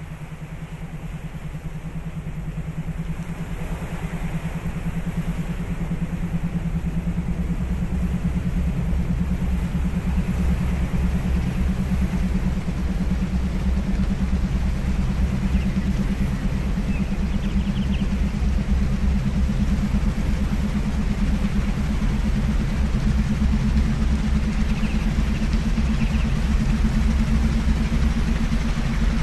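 Low steady electronic drone tones with a fast, even pulsing, as used in theta-wave binaural-beat tracks, under a steady hiss of sea-wave sound. The sound fades in over the first several seconds and then holds steady.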